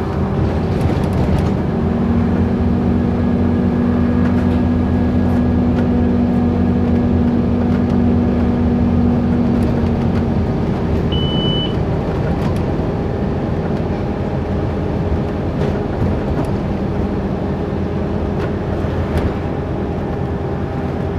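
Scania OmniCity single-decker bus heard from inside its passenger cabin, its five-cylinder diesel engine running steadily as it drives along, with a steady humming tone over the first half. A short high beep sounds about eleven seconds in.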